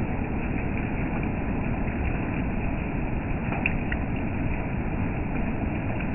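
Steady rain falling, an even hiss with a few separate drops ticking about halfway through.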